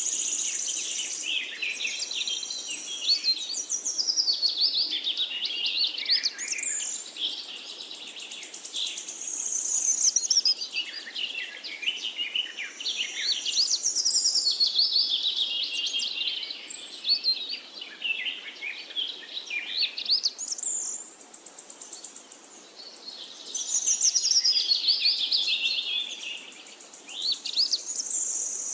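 Birds chirping and singing in rapid, twittering phrases that often sweep down in pitch, coming in bursts a few seconds long with short lulls between.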